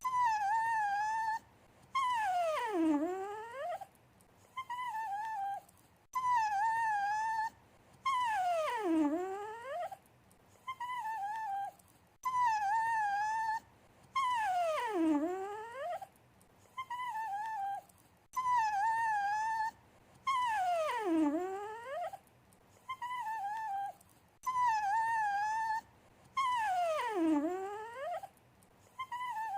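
A dog whining and whimpering in a repeating cycle about every six seconds: a short wavering whine, then a longer whine that slides down in pitch, with brief pauses between.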